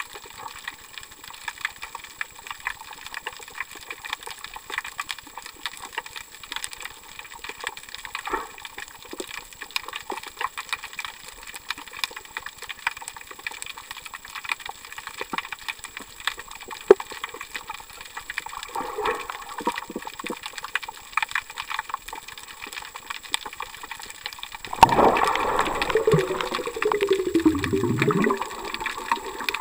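Muffled underwater sound picked up by a camera below the surface: a steady crackle of many small clicks, and near the end a louder rush of water with a falling gurgle.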